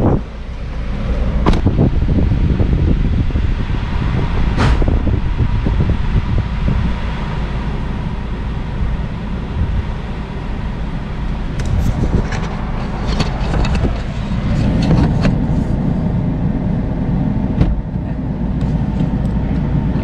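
Toyota Voxy ZRR80W's 2.0-litre four-cylinder engine running, heard from inside the cabin as a steady low rumble, with a few sharp clicks and knocks, several of them bunched together in the middle.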